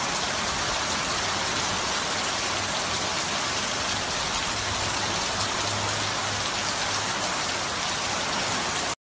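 Heavy rain pouring down in a dense, steady hiss. It cuts off suddenly near the end.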